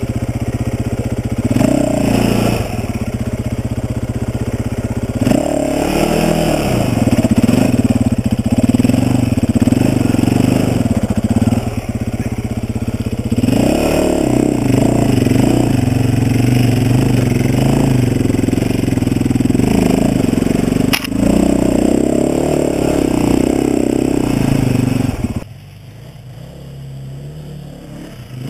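Dirt bike engine being ridden up a rutted trail, its pitch and loudness rising and falling with the throttle. About three seconds before the end the engine drops off to a much quieter, lower running.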